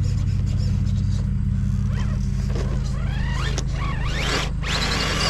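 RC rock crawler's Hobbywing Fusion SE 1800 brushless motor whining as the truck crawls, its pitch rising and falling with the throttle from about two seconds in, over a steady low hum.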